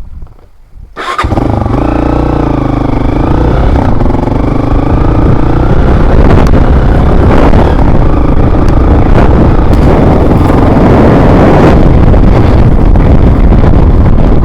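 Motorcycle engine that starts up suddenly about a second in, then runs loud while being ridden, its pitch wavering, with heavy wind rumble on the microphone.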